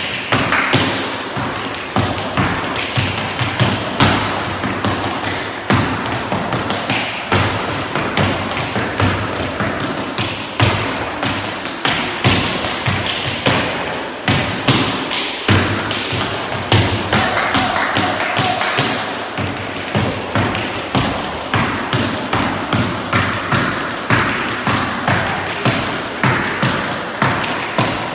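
Tap shoes striking wooden floor boards: one dancer tapping out a fast, unbroken rhythm of sharp taps mixed with heavier thuds.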